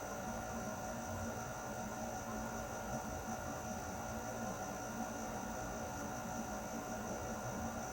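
Air conditioner running steadily: an even whooshing blow of air with a low hum and several steady whining tones.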